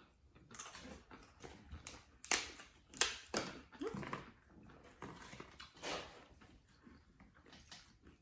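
Close-up crunching and chewing of corn tostadas with dip: a string of short, sharp crunches and mouth sounds, the loudest about two and three seconds in.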